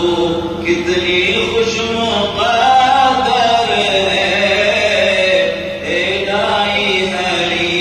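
A man's solo voice chanting an Urdu naat without instruments. He holds long notes that glide up and down the melody, with brief pauses for breath.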